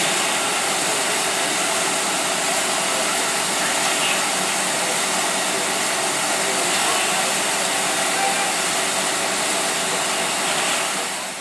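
Steam locomotive letting off steam: a loud, steady hiss that fades away near the end.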